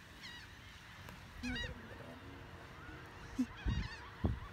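Seabirds calling in short, repeated, hooked calls, several at once in two flurries, over a light background; two dull low thumps near the end are the loudest sounds.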